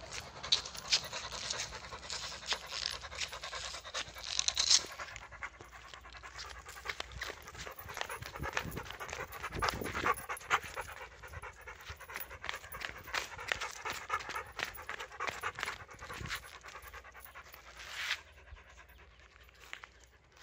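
Dog panting close by, a quick run of short breaths repeating steadily.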